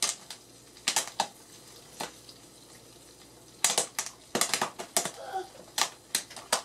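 Jiffy Pop popcorn popping inside its foil-covered pan on the stove: a few scattered sharp pops, then a quicker run of pops from about three and a half seconds in.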